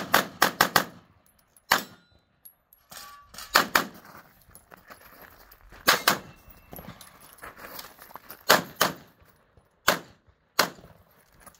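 Pistol shots: a fast string of about five in the first second, then single shots and quick pairs spaced a second or more apart, each a sharp crack with a short ring-out.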